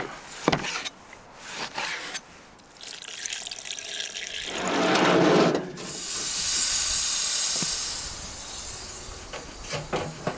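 Steady high hissing and sizzling from the hot steel plate of a barrel grill as it gives off steam and smoke, preceded about four and a half seconds in by a louder rushing noise lasting about a second. A few knocks and clicks near the start and the end.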